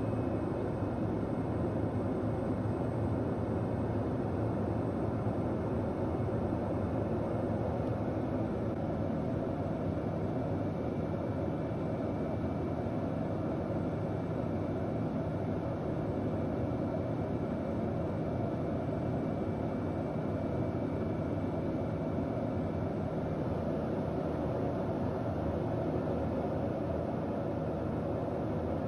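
Single-engine light aircraft's piston engine and propeller running steadily, heard from inside the cockpit during final approach and landing.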